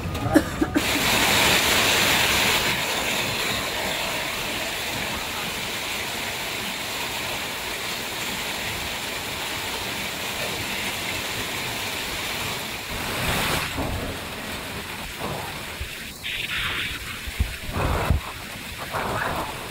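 Heavy rain falling on floodwater, a steady hiss; in the last few seconds it thins out and gives way to irregular splashing and sloshing from someone wading knee-deep through the water.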